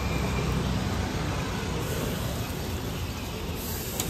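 Steady low rumble of street traffic, with a faint click near the end.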